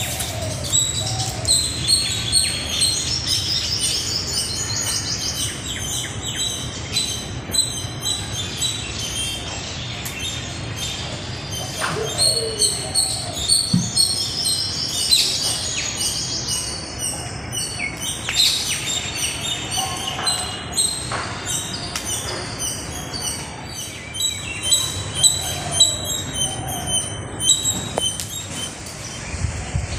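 Several birds calling and singing together: a steady stream of high chirps and tweets, with repeated trilled phrases a couple of seconds in and again around the middle, and a few lower calls mixed in.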